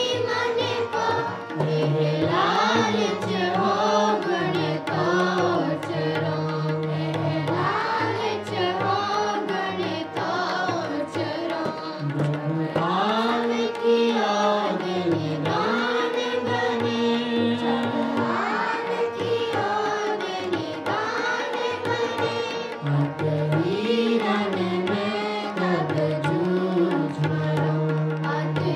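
Sikh kirtan: a man and children singing a devotional hymn to harmonium accompaniment, with tabla drumming.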